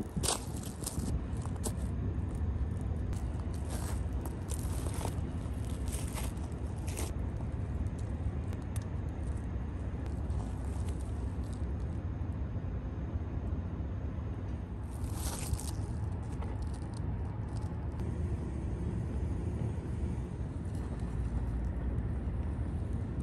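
Wood fire burning in a homemade rocket stove, crackling and snapping, with bunches of snaps in the first seven seconds and again about fifteen seconds in, over a steady low rumble.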